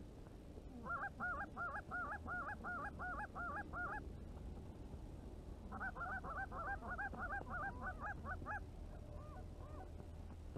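Goose honking clucks in two quick runs of about four calls a second, each run lasting about three seconds with a pause between, then two fainter calls near the end. A steady low rumble lies underneath.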